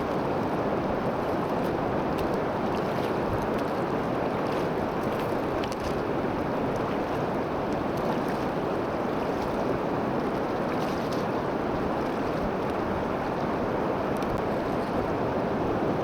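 Steady rush of sea surf breaking on the shore.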